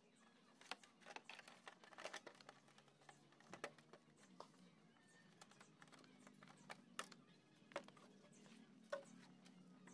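Faint, irregular plastic clicks and taps as the fairing panels and their clips on a Honda PCX 150 scooter are pried loose with a pry tool.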